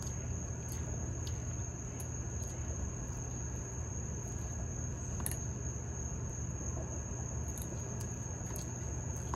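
Insects outdoors droning in one steady high tone, unbroken throughout, over a low steady background hum. A few faint clicks of a metal spoon against a plastic food container come through now and then.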